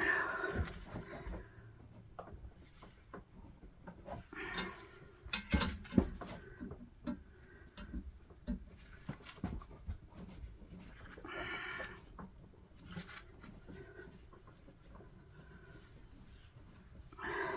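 Irregular clicks and knocks of hand tools working on metal, the loudest about five to six seconds in, with a few short pitched sounds in between.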